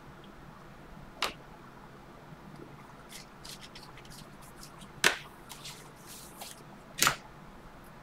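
Bowman Chrome baseball cards being flicked through and handled, with three sharp snaps of card edges about a second in, about five seconds in and near seven seconds. Softer card flicks fall between them.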